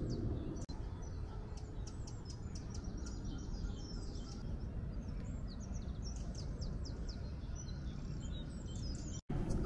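Small birds chirping and singing, many short high calls, over a steady low rumble of outdoor background noise.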